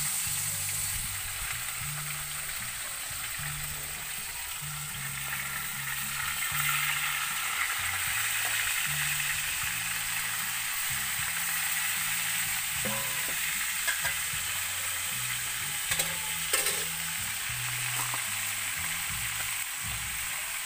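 Lizardfish frying in hot oil in a cast-iron pan over a wood fire: a steady sizzle, with a few light knocks about two-thirds of the way through.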